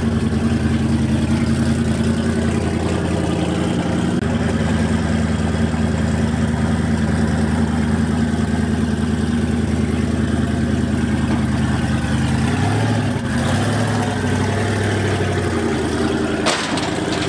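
Fox-body Mustang's engine idling steadily while the car creeps along, then given a little throttle from about 12 seconds in as it drives up the ramps onto a trailer dyno. A brief knock near the end.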